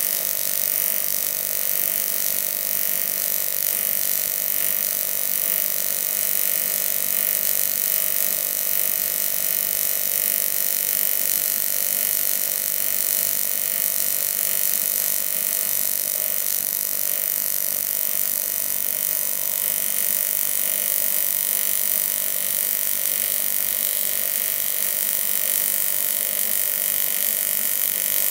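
AC TIG welding arc on 6061 aluminum tubing at about 120 amps, a steady unbroken buzzing hiss as a joint is welded with 5356 filler rod.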